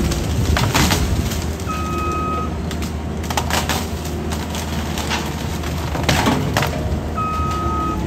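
Compact track loader's diesel engine running under load while its disc mulcher grinds through brush and small trees, with repeated sharp cracks as wood is shredded. Two long beeps sound, one about two seconds in and one near the end.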